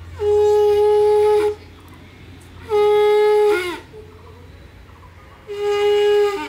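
A conch shell (shankha) is blown three times, each a loud, steady held note of about a second that wavers and drops in pitch as it ends. This is the conch blowing of a Hindu puja.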